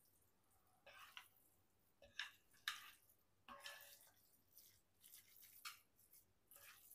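Faint, scattered wet squishes and light clicks of food being handled in the kitchen, a dozen or so short sounds at uneven intervals.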